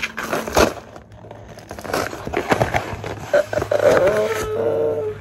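A courier envelope being torn open by hand: irregular rustling, crinkling and tearing of packaging. A held tone lasts for about a second and a half near the end.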